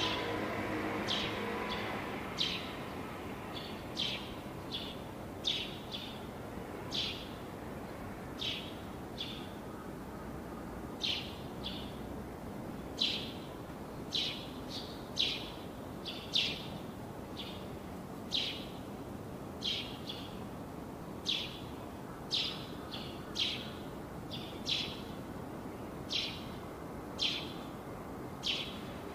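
A bird calling over and over: short, sharp chirps that each drop quickly in pitch, about one a second and sometimes in quick pairs, over a steady outdoor background hum.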